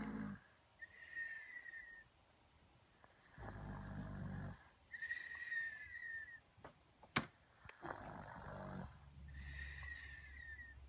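A sleeper snoring in a slow rhythm, about three breaths. Each in-breath is a low snore and each out-breath is a high, slightly falling whistle, like a cartoon snore. There is one sharp click about seven seconds in.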